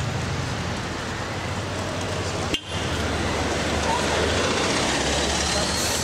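City street ambience: steady road traffic with vehicle engines running and indistinct voices of passers-by. The sound drops out abruptly for a moment about two and a half seconds in.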